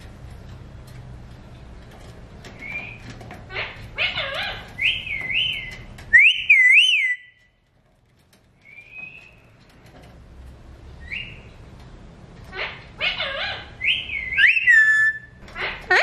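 Alexandrine parakeet giving short whistled calls with a wavering, trilling pitch, in groups with a brief pause about halfway, over a faint low hum.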